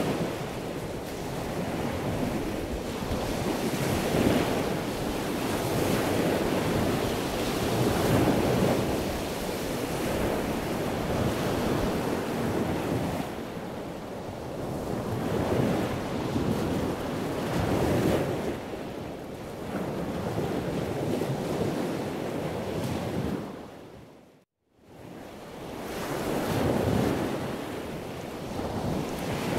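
Wind buffeting the microphone over the wash of the sea around a sailboat, swelling and easing every few seconds. It fades out briefly a few seconds before the end and comes back.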